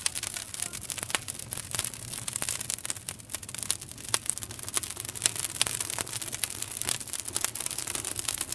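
Campfire crackling, with frequent sharp pops scattered at irregular times over a steady hiss.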